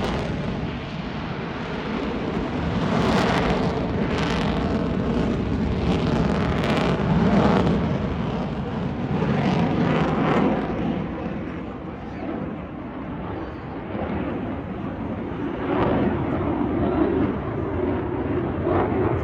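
F-35 fighter jet's engine, a loud, rumbling, crackling jet noise that swells and eases, dipping about twelve seconds in and building again toward the end.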